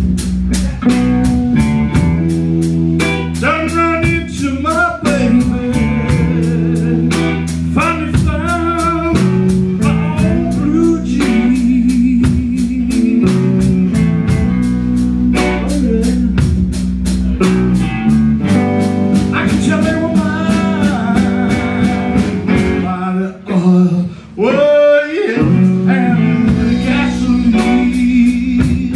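A live blues band playing a slow blues: a male singer's voice over electric bass, electric guitars and drums. The band stops briefly about 24 seconds in, then comes back in.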